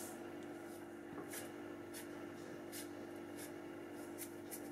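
Hand and spoon mixing dry flour and sugar in a steel bowl: faint, brief, irregular scratchy rustles over a steady low hum.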